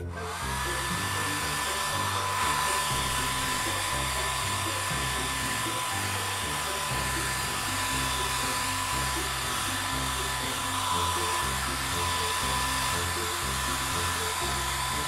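Hair dryer blowing steadily with a high whine. It rises in pitch briefly as it is switched on, then runs and cuts off suddenly at the end, over soft background music.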